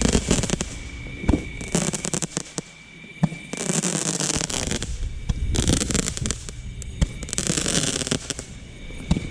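Consumer fireworks going off: scattered sharp pops and cracks, with several crackling hissing bursts of about a second each.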